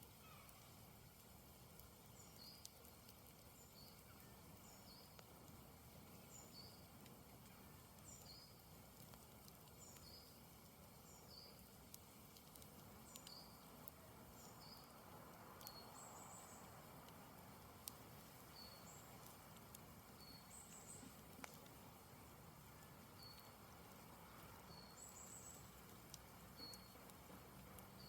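Faint outdoor near silence with a small bird repeating a short, high two-note chirp, the second note lower, about once a second, and the occasional faint crackle from a campfire.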